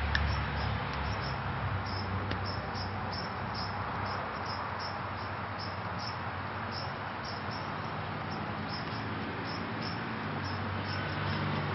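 Insects chirping: short, high chirps repeating a few times a second over a steady background hiss. A low rumble fades out in the first second and comes back near the end.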